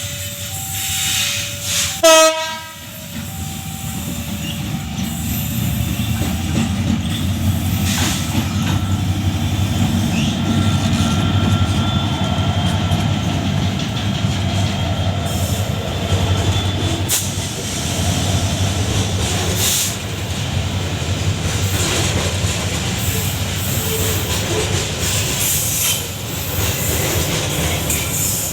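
Long Babaranjang coal freight train passing, its wagons' wheels making a steady heavy rumble with rail clatter and faint squeals. A two-tone warning signal beeps at the start, and a brief loud blast sounds about two seconds in.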